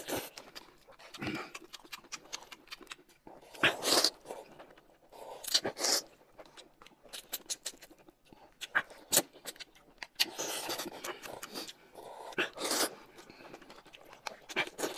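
Noodles being slurped and chewed: a few loud, hissing slurps spread through, with wet chewing and lip-smacking clicks in between.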